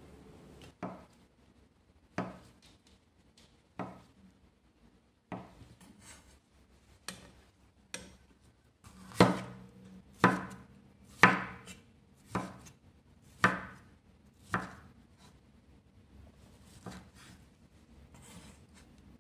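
A kitchen knife chopping on a wooden cutting board in slow, separate strokes, about one a second. The strokes are loudest in the middle and fade to a few light taps near the end.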